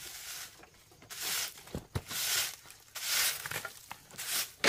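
Broom sweeping the ground in repeated swishing strokes, about one a second, with two short dull knocks near the middle.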